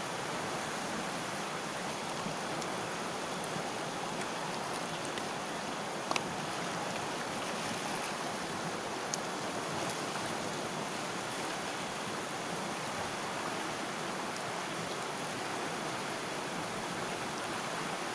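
Steady rush of a shallow river flowing past boulders, with two small clicks partway through.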